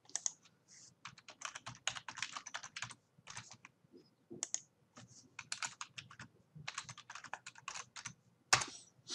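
Typing on a computer keyboard: quick runs of key clicks with short pauses, as a user name and then a password are typed, and one louder click near the end.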